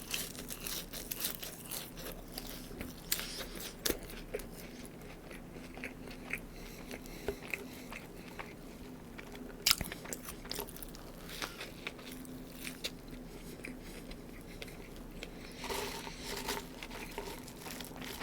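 Close-up chewing and biting of fast food, with many small irregular crunches and mouth clicks.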